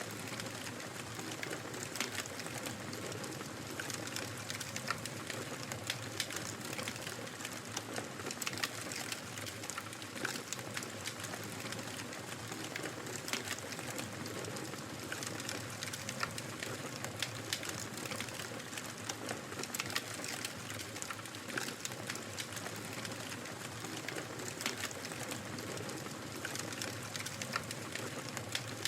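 Fireplace fire crackling: a steady hiss with frequent sharp pops and snaps scattered throughout.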